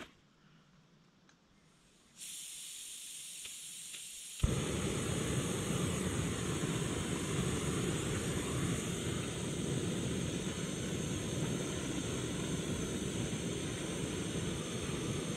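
Portable camp stove: gas hisses from the opened valve for about two seconds, then a sharp click lights the burner and it runs with a loud, steady roar.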